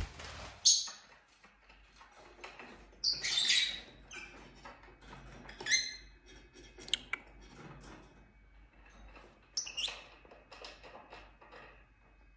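Lovebirds giving short, scattered squawks and chirps, a handful of separate harsh calls a few seconds apart, the loudest about three seconds in.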